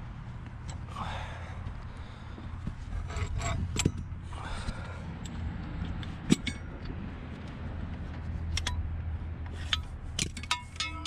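Steel tools clinking and knocking as a breaker bar with a pipe extension and a socket extension work a Honda D16 engine's pulley bolt loose. There is one sharp knock about six seconds in and a cluster of clinks near the end.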